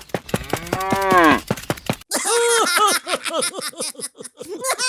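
Cattle mooing: one long call about half a second in, then a run of short, quick calls from about two seconds in. A rapid ticking runs under the first second.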